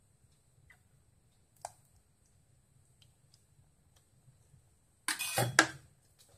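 Kitchen things being handled after pouring coconut oil into the stew pot: a few faint clicks, then a short clatter of knocks about five seconds in.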